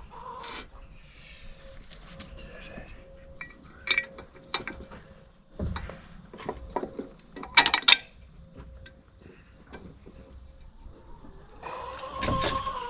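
Scattered metal clinks and knocks from refitting the steel splitting wedge onto the log splitter's ram, with the loudest cluster of knocks about eight seconds in.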